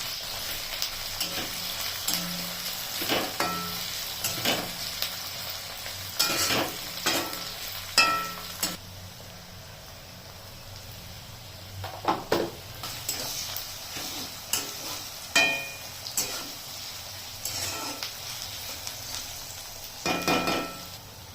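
A metal spoon stirring and knocking against a cooking pan, each knock ringing briefly, while food fries with a sizzle that grows fainter about nine seconds in.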